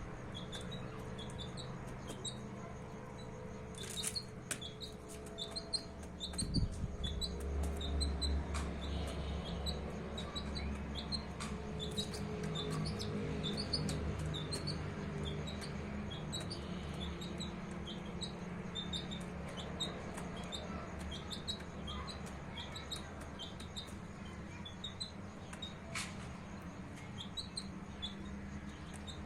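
Baby chicks peeping: a steady stream of short, high peeps, a few each second, over a low steady hum, with an occasional sharp click.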